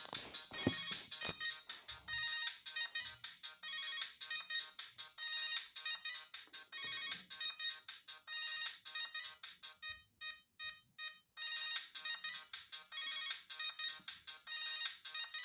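Siemens CXT65 mobile phone playing a ringtone: a fast electronic melody of quick notes, high and thin with little bass. About ten seconds in it drops to a few sparse repeated notes for just over a second, then the full tune resumes.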